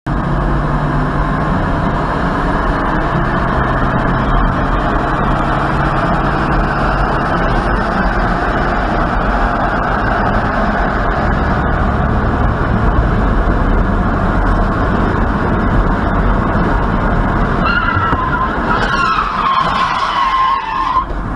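Steady road and engine noise of a car driving at highway speed, heard from inside the cabin. About eighteen seconds in, a high, wavering squeal starts and continues.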